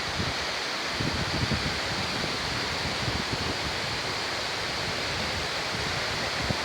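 Waterfall rushing: a steady, even hiss of falling water, with an uneven low rumble underneath.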